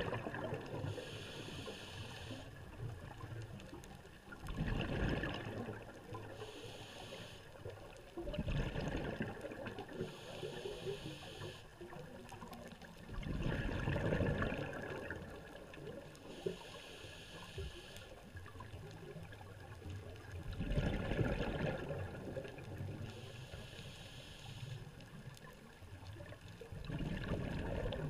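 Scuba diver breathing through a regulator underwater: a hissing inhale alternates with a gurgling burst of exhaled bubbles, about five breaths in a slow, even rhythm.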